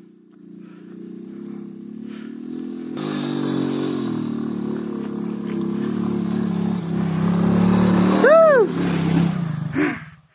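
Motorcycle engine running and growing steadily louder, with a short rising-and-falling vocal cry about eight seconds in.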